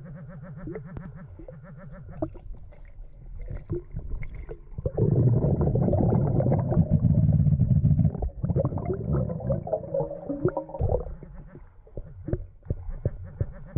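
Underwater sound of a diver's exhaled air bubbling up, a loud low rumble for about three seconds midway. Around it come short clicks and scrapes from a gloved hand digging in the sandy bottom.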